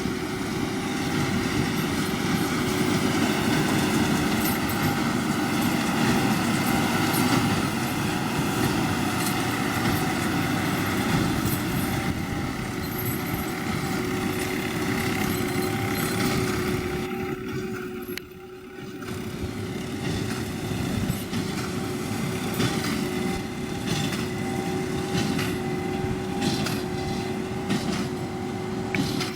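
John Deere 7530 tractor and Massey Ferguson 2270 square baler running together, a steady mechanical hum that holds one pitch, quieter for a moment a little past the middle.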